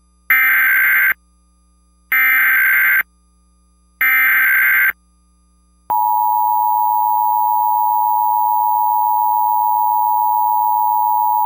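Emergency Alert System SAME header: three short bursts of buzzing digital data tones, about two seconds apart, then the steady two-tone attention signal (853 and 960 Hz) starts about six seconds in and holds. This is the coded start of an emergency alert broadcast, before the spoken message.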